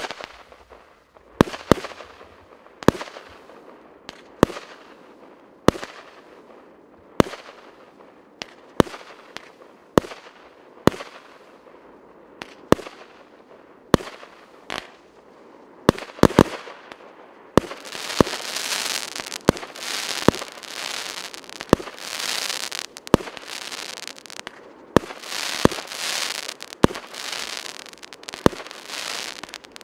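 Piroff 63-shot, 1-inch fireworks battery firing its shots in steady succession, about three sharp bangs every two seconds. From a bit past halfway, a dense crackle from crackling star effects fills the gaps between the shots.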